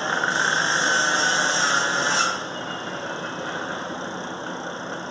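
Extrication work on a crashed car: a loud, harsh scraping noise for about two seconds that cuts off sharply, over an engine idling steadily.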